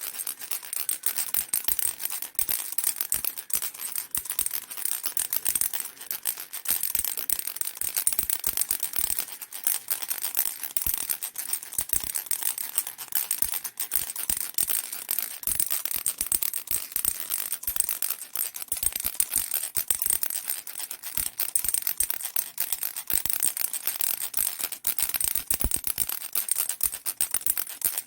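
Baby rattle shaken continuously, a dense, fast rattling that stays bright and high-pitched without a break.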